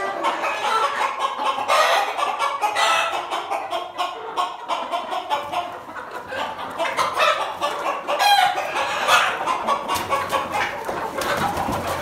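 A flock of Kadaknath chickens clucking, many short calls overlapping without a break.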